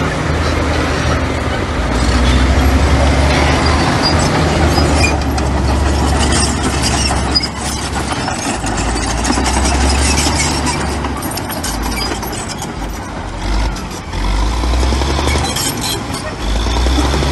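Heavy diesel earthmoving machinery running, its engine rising and falling with the load, with scattered metallic clanks and squeaks.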